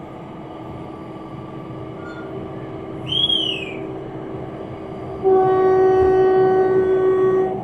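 Horn of the Batara Kresna railbus sounding one steady blast of about two seconds, starting about five seconds in, as the departure signal at the station. Before it, the standing railbus's engine hums steadily, and a brief high whistle rises and falls about three seconds in.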